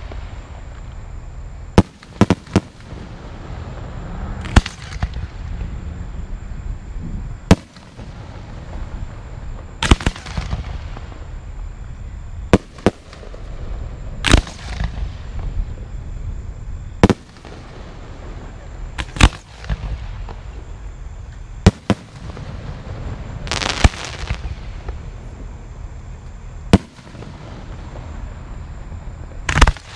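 Aerial fireworks shells bursting: about fifteen sharp bangs spaced irregularly every two to three seconds, a few in quick pairs. Several bangs are trailed by a fading hiss.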